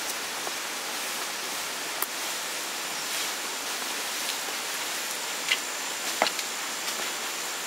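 Steady rain falling: an even hiss, with a few sharp ticks of drops.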